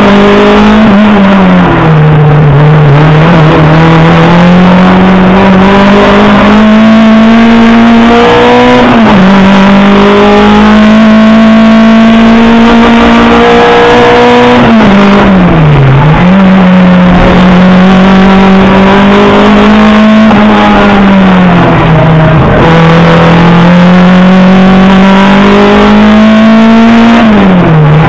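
A competition car's engine heard from inside the roll-caged cabin, running hard under load. The revs climb slowly and drop sharply about four times as the driver changes gear or lifts off. Road and wind noise fill in underneath.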